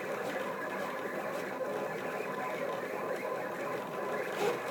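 Stepper motors of a Rostock delta 3D printer running a G-code program, a whine of several tones that keep shifting in pitch as the carriages change speed and direction.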